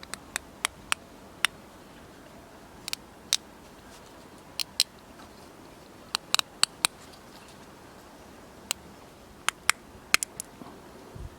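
Irregular series of sharp clicks and light taps from small hard objects being handled, some coming in quick pairs or clusters.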